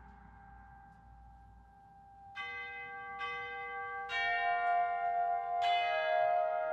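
Concert-band percussion bells: after the last chord fades to a hush, four bell strokes about a second apart, each left ringing so the tones pile up and grow louder.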